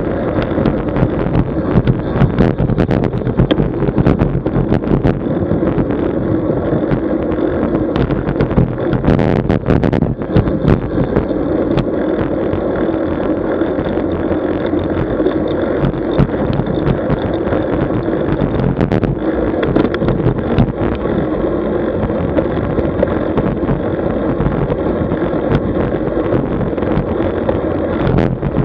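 Wind rushing over the microphone of a camera riding along on a road bicycle: a steady low rumble with road noise and scattered clicks and knocks from bumps, more of them in the first ten seconds.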